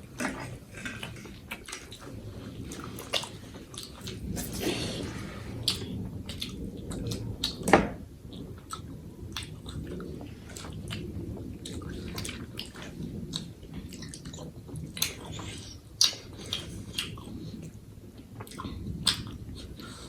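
Close-up eating sounds of momo and spicy instant noodles: chewing and mouth noises with many scattered sharp smacks and clicks, the loudest one a little before halfway.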